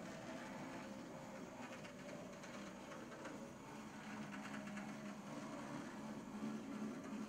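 HO-scale brass model steam locomotive running along the track: its can motor and gear drive hum steadily, a little louder in the second half.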